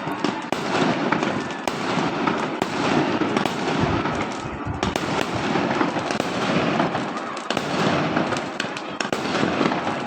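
Many fireworks and firecrackers going off at once: a dense, continuous crackling studded with many short sharp bangs, never letting up.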